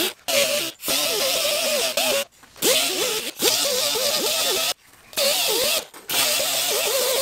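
Small air-powered right-angle die grinder with an abrasive disc, run in about six short bursts as it is switched on and off. Its whine wavers and dips as the disc is pressed into the old backing on the underside of a vinyl dash panel, grinding it away.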